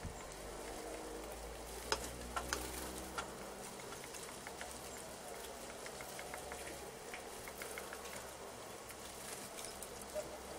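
Faint outdoor ambience: scattered light clicks and taps over a low steady rumble.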